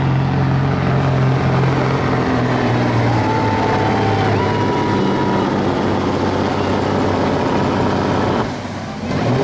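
Semi truck's diesel engine at full throttle under heavy load, dragging a weight-transfer pulling sled. The engine note drops off sharply near the end as the pull finishes.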